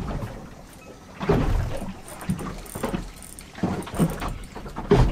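Wind buffeting the microphone on an open boat, coming in irregular gusts about once a second, with water slapping the hull.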